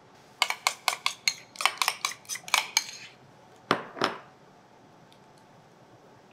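Metal spoon clinking quickly against a glass bowl, about a dozen sharp taps in under three seconds as thick béchamel sauce is scraped and knocked off, followed by two heavier knocks a moment later.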